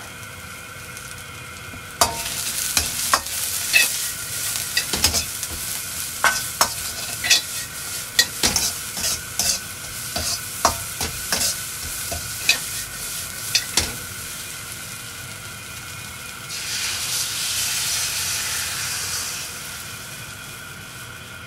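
Green beans sizzling in a hot wok as a metal turner stirs them, scraping and clinking against the pan many times. Near the end, beaten egg poured over the beans sizzles up for a few seconds, then settles.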